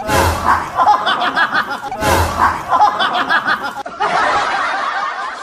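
People laughing and chuckling. A stretch of about two seconds plays again, then about four seconds in the sound cuts to a different, duller recording of laughter and voices.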